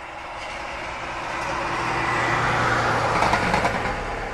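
SM42 (6Dg) diesel shunting locomotive running light engine past, its engine hum and running noise swelling to a peak about three seconds in, then fading.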